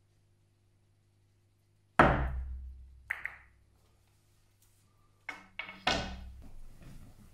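Carom billiard shot: about two seconds in, a loud hard knock with a ringing decay as the cue ball is struck and driven against the cushion, then about a second later a sharp click of ivory-like balls colliding. Near the end come a quick series of knocks and a heavier thud.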